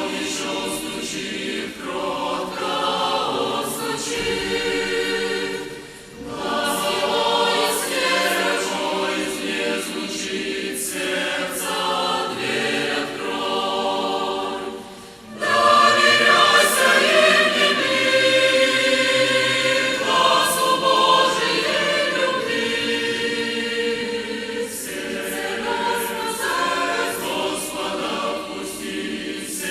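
Choir singing a Christian hymn in long phrases, with short pauses about six and fifteen seconds in; the singing is louder after the second pause.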